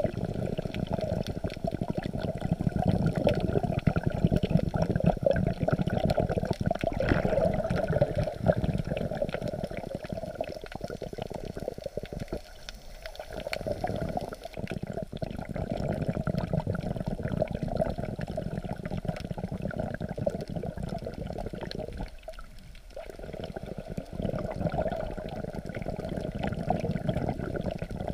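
Shallow sea water heard through a camera held just under the surface: a muffled, steady rush of moving water as waves wash over it, with faint crackling. It drops away briefly twice, about twelve and twenty-two seconds in.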